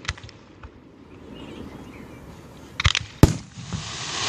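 Fireworks going off: a couple of sharp pops at the start, a quieter stretch, then a quick cluster of sharp bangs about three seconds in.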